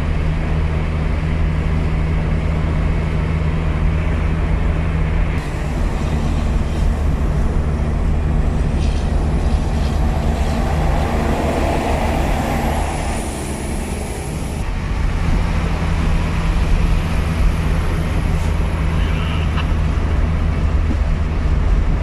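A motor vehicle running steadily, with a constant low engine drone and road noise.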